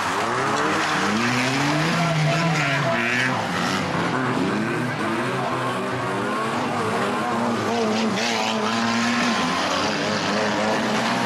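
Several banger racing cars' engines revving up and down as they circle the track, the pitch rising and falling over and over. There are two short bursts of tyre skidding, one about two and a half seconds in and one near eight seconds.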